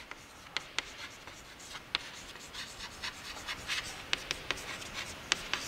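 Chalk writing on a chalkboard: short scratching strokes broken by many sharp, irregular taps as the chalk strikes the board.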